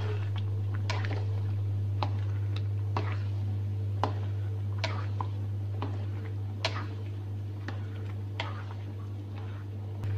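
Spatula scraping and knocking against a wok while stirring rice in coconut milk: irregular sharp clicks about every half second to second. A steady low hum runs underneath.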